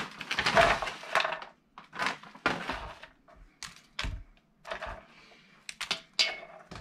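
A plastic bag of broccoli florets crinkles as it is tipped out. Then come several sharp cracks and knocks as the florets are snapped apart by hand and set down on a wooden cutting board.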